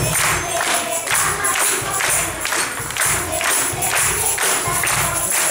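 A group of children clapping their hands and shaking tambourines in a steady beat, about two strokes a second.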